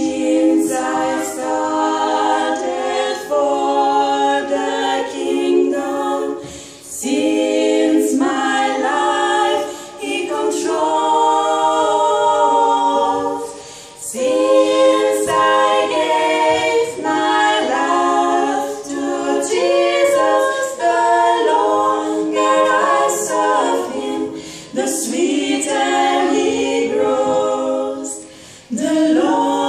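Three women singing a cappella in harmony, with no instruments, in phrases separated by brief pauses for breath.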